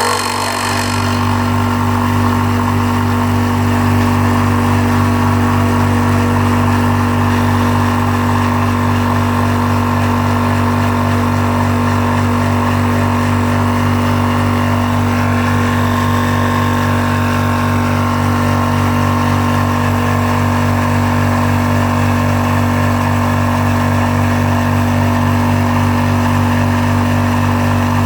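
A portable water-cooled high-pressure PCP air compressor running steadily under load, filling an air rifle's air reservoir, with a loud, even hum.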